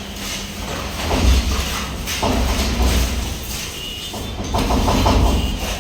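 A heavy engine running, its deep rumble swelling louder three times, with a brief faint squeal partway through.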